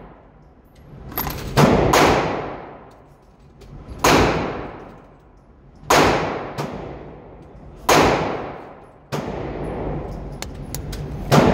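Five gunshots about two seconds apart, each cracking sharply and then ringing out in the long echo of an indoor shooting range.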